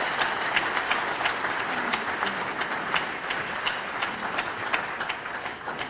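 Audience applauding, many pairs of hands clapping together, thinning out near the end.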